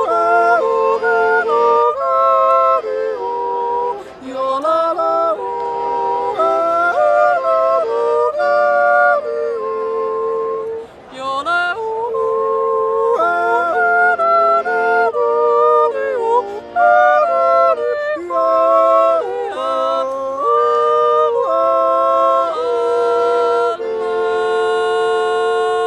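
Wordless yodel sung as a duet by a woman and a man in two-part harmony, the voices jumping quickly between held notes, over a small Swiss button accordion (Schwyzerörgeli). Near the end the yodel settles on a long held final chord.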